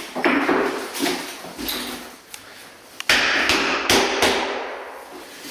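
Carpenter's hammer knocking on wood: a string of sharp knocks, the loudest about three and four seconds in.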